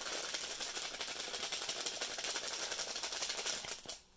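A foil seasoning sachet being shaken over a plastic tub as cheese powder is sprinkled out: a rapid, steady crinkling rustle of the packet. It dies away shortly before the end.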